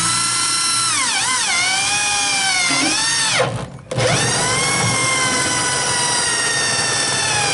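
Cordless drill with a twist bit drilling a bolt hole up into a metal cross-member. The motor's whine dips and recovers in pitch as the bit loads up, stops for a moment about three and a half seconds in, then runs on steadily.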